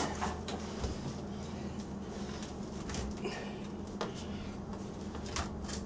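Scattered light knocks and clicks from hands moving tools and parts, over a steady low hum.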